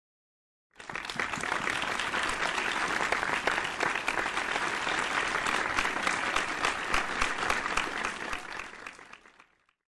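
Audience applause: a large crowd clapping, starting abruptly about a second in, holding steady, then fading away near the end.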